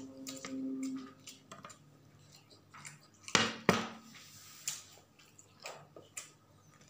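Eating at a table: scattered clicks and rustles as banana-leaf-wrapped rice cakes and a plate are handled, with two sharp knocks a little before halfway.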